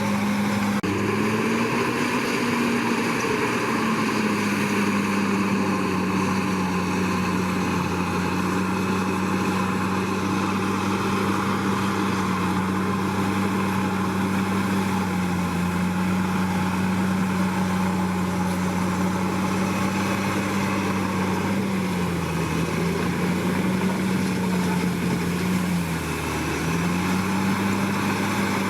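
Komatsu D61PX bulldozer's diesel engine running steadily, its pitch rising briefly about two seconds in and dipping twice near the end.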